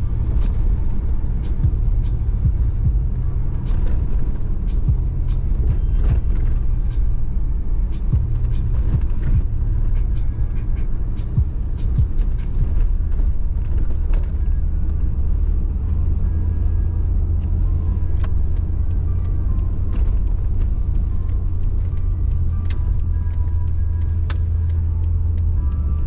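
A car driving: a steady low rumble of engine and road, with many small clicks and knocks over it. The low drone grows a little stronger a bit past halfway.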